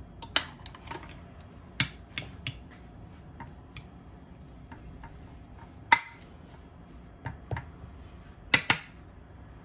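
Metal fork clinking and scraping against a glass baking dish while mashing potatoes: a scattered series of sharp clinks, the loudest about six seconds in.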